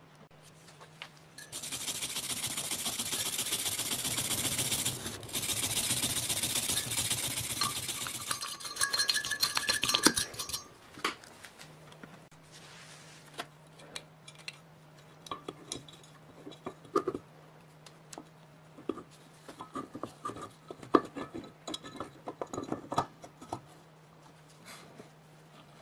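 A loud scraping noise lasting about six seconds, then a few seconds of fast metallic rattling. After that come scattered light clicks and knocks of the electric motor's metal housing and parts being handled and fitted together, over a low steady hum.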